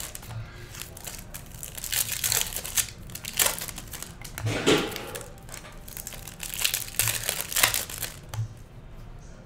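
Shiny foil wrapper of a Bowman Chrome baseball card pack crinkling and tearing in irregular bursts as it is peeled off the cards by hand.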